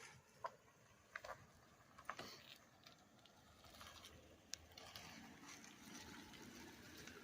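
Near silence, with a few faint, sharp clicks spaced about a second apart.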